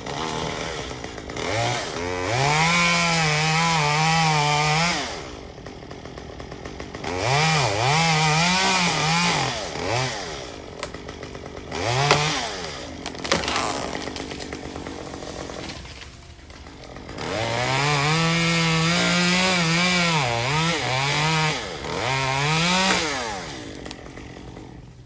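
Two-stroke chainsaw cutting through pecan wood in several long bursts, its engine pitch wavering and dipping under load, with a short rev about twelve seconds in and the saw dropping back to a low idle between cuts.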